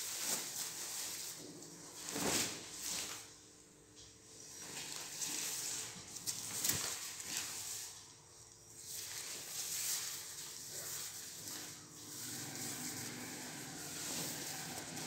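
Silk Paithani saree rustling as it is handled and shaken out, in uneven swells of dry swishing with a few sharper crinkles.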